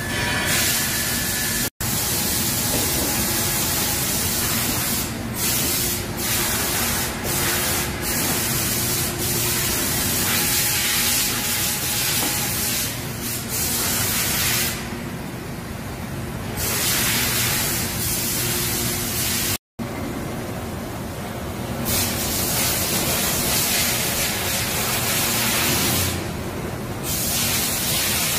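Spindle of a Doosan DB130CX CNC horizontal boring mill running at about 1500 rpm: a steady hiss with a faint low hum. The sound cuts out briefly twice.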